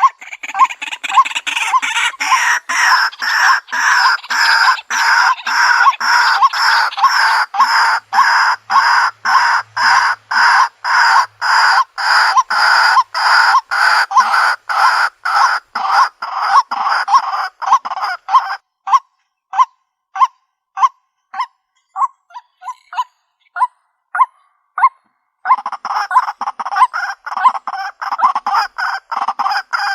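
White-breasted waterhen calling: a loud, rapid run of harsh repeated notes, about three a second. About two-thirds of the way through it thins to single sharper notes for several seconds, then the full rapid calling resumes near the end.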